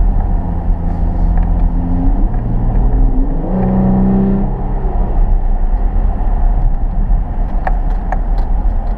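Loud 3.6-litre Pentastar V6 of a 2013 Dodge Durango fitted with a K&N cold air intake, running under throttle while driving; the engine note jumps to new pitches a few times in the first half, then settles to a steadier drone. A couple of short clicks come near the end.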